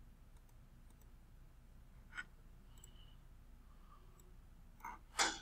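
Faint computer mouse clicks over a low room hum: one sharp click about two seconds in, and a short louder noise near the end.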